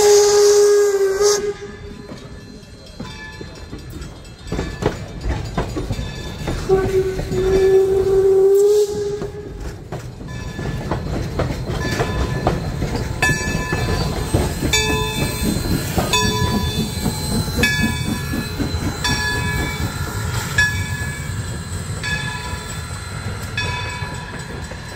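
Baldwin 0-6-0 switcher steam locomotive No. 26 sounding its steam whistle twice, a short blast at the start and a two-second blast about seven seconds in. Then the engine works along with a steady run of exhaust beats while a bell rings over and over, about once a second.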